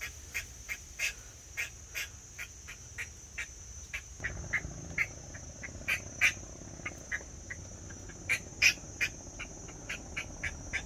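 Short, sharp animal calls come irregularly, several a second at times, over a steady high insect drone. From about four seconds in a low rustle joins them.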